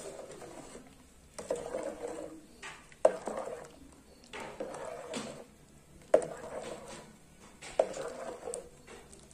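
Steel ladle stirring a pot of rice-flour dumplings in coconut milk: about six strokes, one every second and a half, each a sharp clink of the ladle against the metal pot followed by a swish of liquid.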